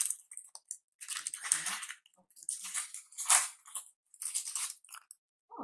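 Plastic wrapping crinkling and crackling in about four bursts as it is handled and pulled open, as when a new makeup sponge is unwrapped.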